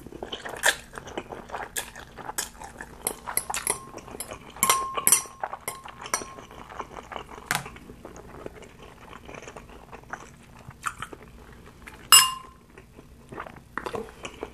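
Close-miked eating of spicy instant noodles: slurping, wet chewing and mouth clicks, with a metal fork scraping and clinking against a glass bowl. The loudest sound is a single sharp, ringing clink about twelve seconds in.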